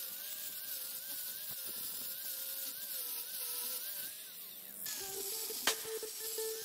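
Angle grinder with an abrasive disc grinding a steel axe head held in a vise: a steady motor whine over grinding hiss, its pitch wavering as the disc is pressed in. A little before the end the sound changes abruptly to a steadier whine with a few sharp clicks.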